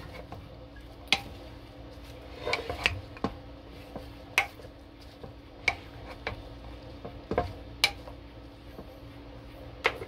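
A spatula stirring chunks of sausage, bread and apple in a ceramic slow-cooker crock, with scattered short knocks and scrapes against the crock's side. A steady low hum runs underneath.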